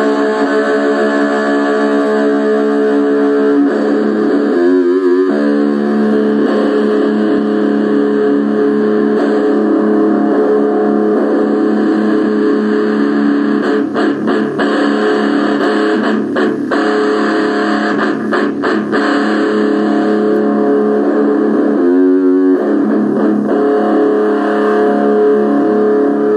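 Guitar music with long held notes, wavering briefly twice, a few seconds in and again near the end. No stray voice or other odd sound comes through.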